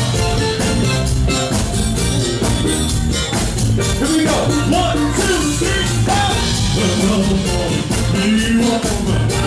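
A live rock band playing, with drums and bass carrying a steady beat and a lead voice singing from about three and a half seconds in.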